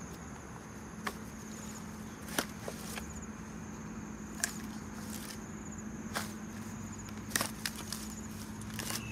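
Insects trilling steadily at a high pitch over a low steady hum, with about ten irregular sharp clicks and knocks.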